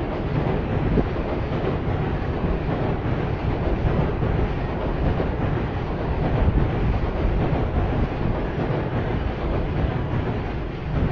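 A train passing with a steady, low rumble.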